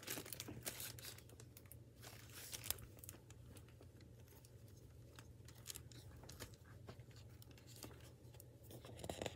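Faint rustling and crinkling of a hardcover picture book in a plastic library jacket as its pages are turned by hand, in scattered short bursts.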